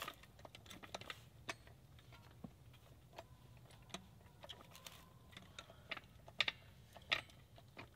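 Faint, irregular light metallic clicks and taps from a red trolley floor jack being set and worked under a car's front wheel hub.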